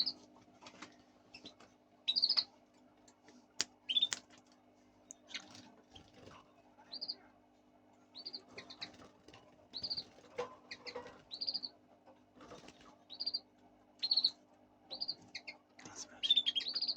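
Fischer's lovebirds chirping: short, shrill high-pitched calls repeated roughly once a second, some in quick pairs, over a low steady hum.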